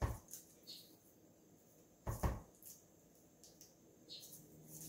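Hand-turned pineapple corer being twisted down through a pineapple, giving scattered scraping and crunching sounds with a few knocks. The loudest knock comes a little after two seconds in.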